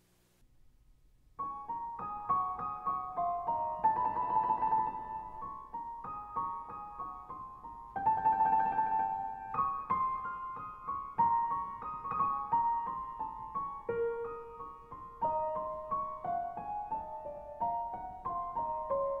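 Piano music, beginning about a second and a half in: a melody of separate struck notes.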